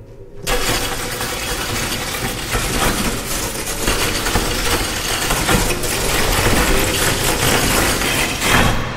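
Dense, rough rumbling noise from an experimental live music performance on instruments and objects. It starts suddenly about half a second in, holds steady, and dies away near the end.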